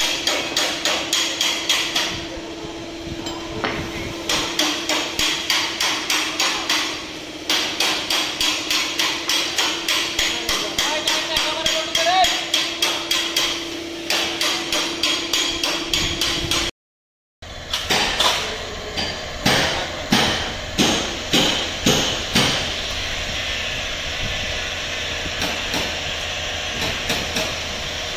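Rapid, regular hammer blows, about three a second, going on without a break apart from a short dropout just past halfway, over a steady hum in the first half.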